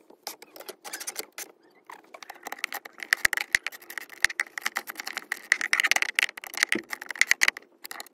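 Hand ratchet wrench clicking in quick runs as a console bolt is driven back in, starting about two seconds in.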